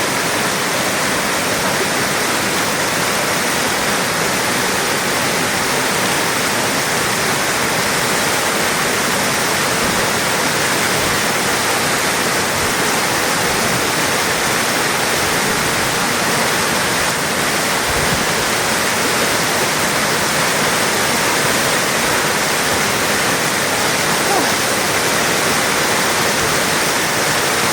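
Waterfall: falling water rushing and splashing in a steady, loud, unbroken noise.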